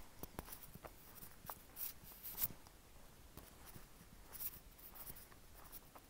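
Near quiet, with faint scattered rustles and soft clicks close to the microphone: movement and handling noise.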